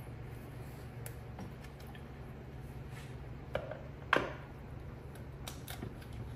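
Faint metal clicks and then two sharp clanks about three and a half and four seconds in, the second with a short ring, as a flywheel is worked onto the crankshaft flange of a Porsche 911 engine. A steady low hum runs underneath.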